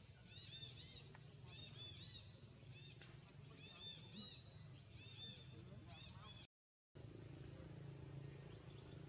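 Faint runs of short, high chirps, each rising and falling in pitch, three or four in quick succession and repeating, over a low steady hum. The sound drops out completely for a moment about six and a half seconds in, after which the chirps are no longer heard.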